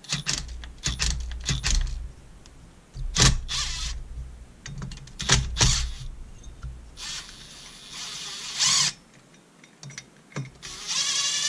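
Cordless driver with a long extension spinning out the bolts of a temporary block-off plate on a chainsaw cylinder, in several short bursts of motor whir and clatter.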